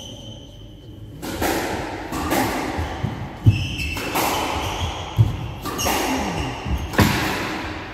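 Squash rally: the rubber ball is struck by rackets and smacks off the court walls about once a second, with sneakers squeaking on the wooden floor between the shots.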